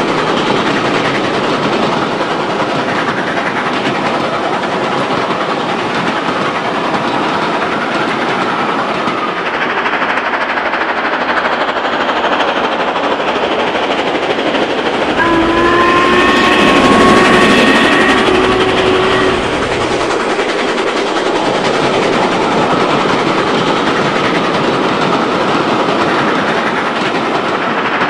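Archive recording of a steam train running by, with a steady rattle of wagon wheels over rail joints. A steam whistle blows for about four seconds around the middle, where the sound is loudest.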